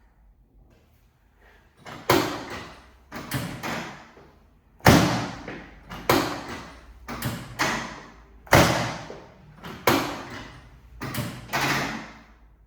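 A run of heavy thumps, roughly one a second in a repeating pattern with some struck in quick pairs, each dying away briefly after the hit.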